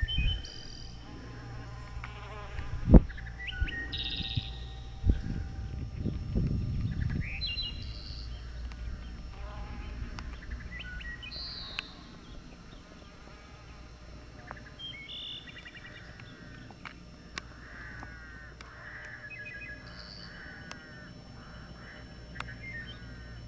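Birds chirping and calling in short high phrases. During the first seven seconds or so, wind rumbles on the microphone, with a sharp knock about three seconds in that is the loudest sound.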